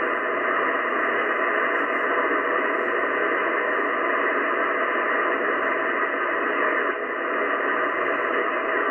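Shortwave static from the Yaesu FTdx10 transceiver's speaker: a steady, even hiss, held within a narrow band, as the main dial sweeps up through about 5450 to 5500 kHz between stations.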